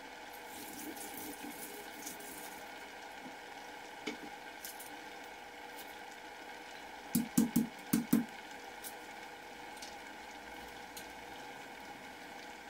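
Coconut-milk curry simmering in a steel pot: a steady, low bubbling hiss. About seven seconds in comes a quick run of about five sharp knocks.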